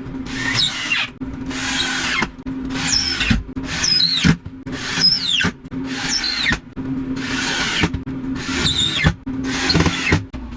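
A tool worked in repeated strokes, about one a second, nine in all, each stroke a harsh rasp with a high squeal that falls in pitch, over a steady low hum.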